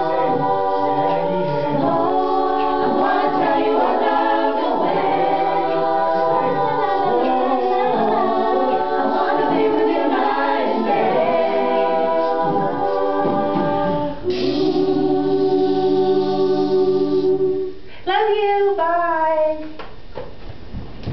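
A cappella vocal group of men and women singing a song in close harmony over a sung bass line. About two-thirds through they hold one long chord, then finish with a few short sliding notes.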